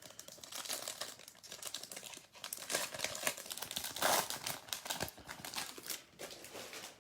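A foil baseball card pack wrapper crinkling as it is torn open and handled: irregular crackling rustle.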